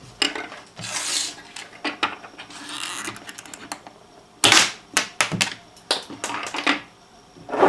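Irregular clicks and clacks of a 3D-printed plastic spring-lever block being flexed and set down on a wooden table, with a few short rubbing sounds. The loudest cluster of clicks comes about four and a half seconds in.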